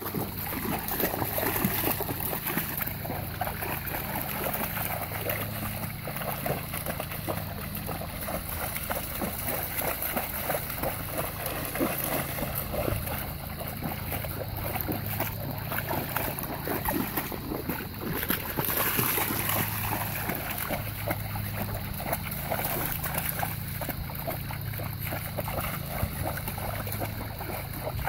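Golden retriever wading and splashing through shallow water, its legs churning the surface in irregular, continuous splashes.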